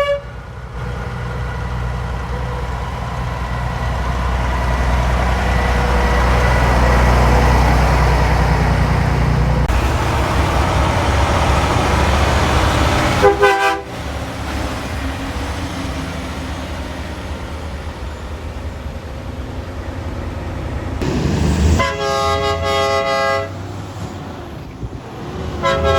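Big trucks going by: engine rumble and road noise swell and fade over the first ten seconds. A short truck horn toot sounds about halfway through, and a longer truck horn blast of about a second and a half comes near the end.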